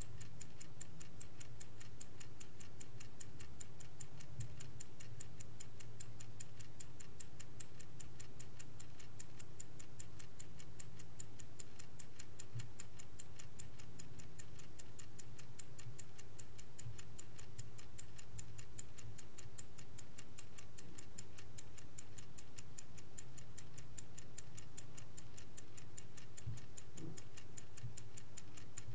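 Vintage Swiss-made Angelus mechanical clock ticking with a steady, even beat.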